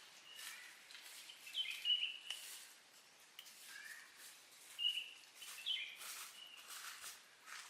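Short, high-pitched chirping calls, about five of them, each dropping slightly in pitch; the loudest come about two seconds in. Brief soft rustles sound between them.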